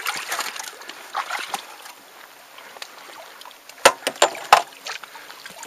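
Water sloshing against an inflatable kayak wedged between shore rocks, then a quick cluster of sharp knocks a little under four seconds in as the paddler climbs out onto the rock.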